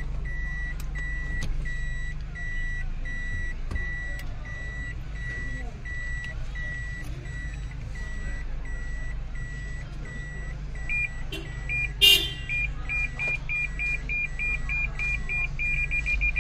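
Toyota's in-cabin reverse warning beeper sounding about twice a second, then from about 11 s in a higher parking-sensor beep that speeds up until it is almost continuous as the car closes on the vehicle behind. One sharp knock about 12 s in is the loudest sound, and a low engine hum runs underneath.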